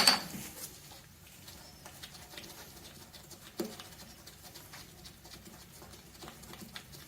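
Light, scattered clicks and scrapes of hand tools working on engine parts, with one sharper metallic knock about three and a half seconds in.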